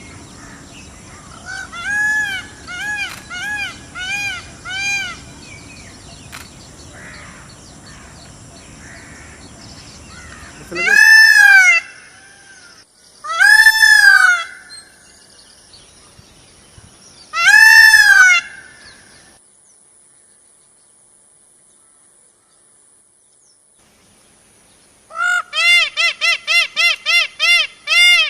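Indian peafowl (peacock) calling: five short calls, then three loud calls of about a second each a few seconds apart. After a quiet stretch, a rapid run of about nine short calls comes near the end.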